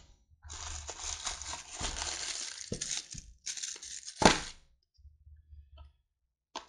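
Clear plastic packaging bag crinkling and rustling as it is handled and pulled out of a cardboard box, with one sharp, loud crackle about four seconds in, then only faint rustles.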